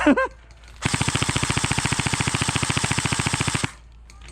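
A brief loud shout, then an airsoft gun firing one sustained full-auto burst of about three seconds, a rapid even rattle of roughly sixteen shots a second that stops abruptly.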